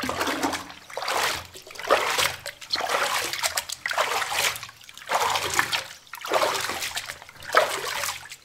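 Pool water splashing in repeated bursts, roughly one a second, as a child swims with kicking and paddling strokes.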